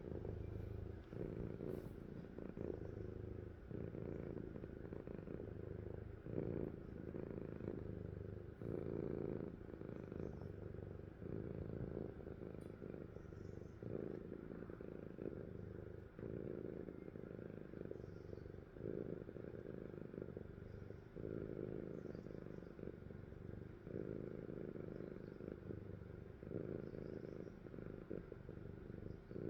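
A sleeping cat snoring: a steady low, purr-like rumble that swells and eases with each breath, about every two seconds.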